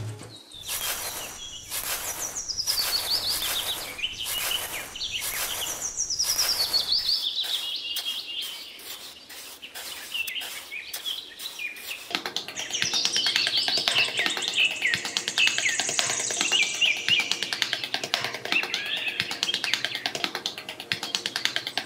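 Birds chirping and trilling in quick, falling phrases. During the first seven seconds or so, this runs over a series of rough scraping strokes as sand is scooped.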